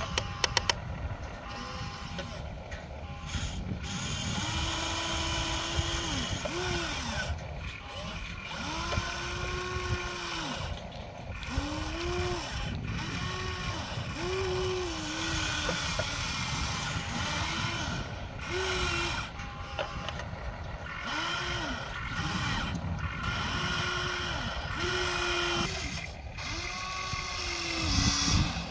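Small electric motors of a Huina radio-controlled excavator whining in about a dozen short runs as the boom, arm and bucket move. Each run rises in pitch, holds and drops away. A steady low rumble sits underneath.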